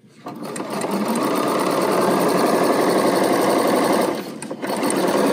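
BERNINA sewing machine running at a steady stitching speed, sewing down the middle of a bias strip wrapped around two piping cords. It starts up at the beginning and eases off for a moment about four seconds in before running on.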